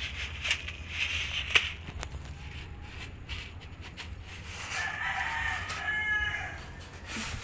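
A rooster crows in the background, one long drawn-out call about five seconds in. Around it, a few faint rustles and clicks, the loudest a sharp click about a second and a half in.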